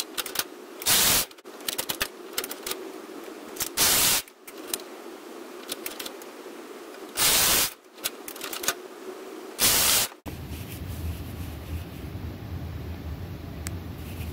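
Brother KH710 knitting machine carriage pushed back and forth across the needle bed, knitting rows: a ticking rattle of the needles with a loud clatter about every three seconds, four times. About ten seconds in it cuts off to a steady low hum.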